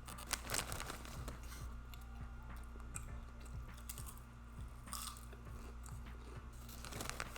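A person chewing and smacking on food, close to the microphone: quick wet mouth clicks, with louder bites about half a second in, around five seconds and near the end.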